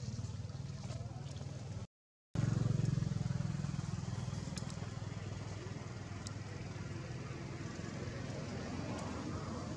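Steady low engine drone in the background, with a few faint high clicks over it. The sound drops out completely for a moment about two seconds in, then resumes.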